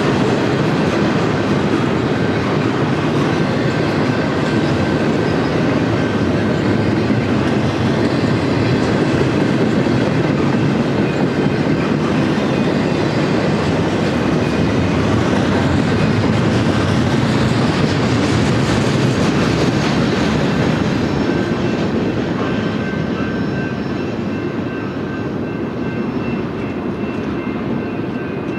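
Double-stack intermodal freight train's well cars rolling past: a steady rumble of wheels and trucks on the rails, fading over the last several seconds as the end of the train goes by.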